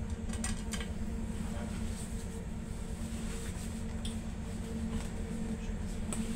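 Interior noise of a Stadler FLIRT ER160 electric multiple unit: a steady low rumble with a faint constant hum and a few light clicks and rattles.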